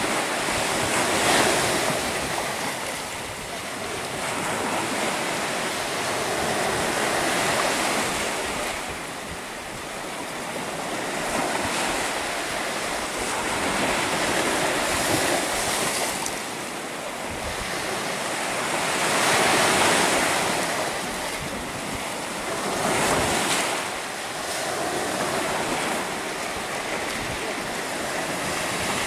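Sea surf breaking and washing up a sandy beach, the rush of the waves swelling and fading every few seconds.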